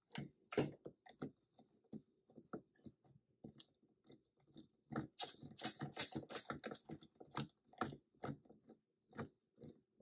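Ratchet clicking in short, irregular runs as a chainsaw carburetor's mounting nut is run down onto its stud, with a fast unbroken stretch of clicking about five seconds in.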